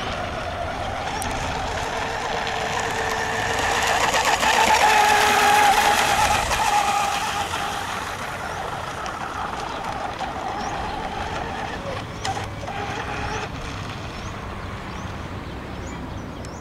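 Electric RC racing hydroplane with a Feigao 8XL brushless motor running at speed, a steady high-pitched whine that swells as the boat passes close, loudest about four to seven seconds in, then fades as it runs away across the pond.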